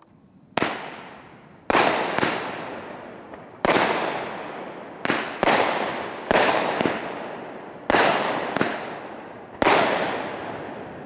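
Aerial fireworks bursting: about eleven sharp bangs at uneven intervals over nine seconds, some in quick pairs, each fading in a long echoing tail.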